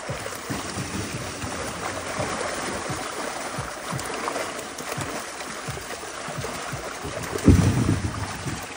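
Muddy pond water splashing and sloshing as hybrid catfish thrash in a seine net drawn up in the shallows and are scooped out with a basin, with one heavier splash near the end.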